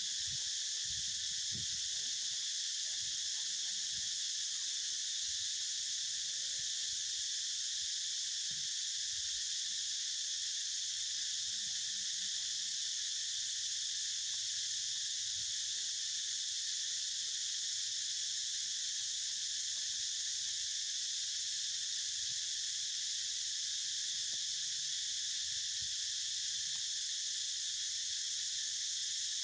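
Steady, unbroken chorus of insects, a shrill high drone, with a few faint low knocks now and then.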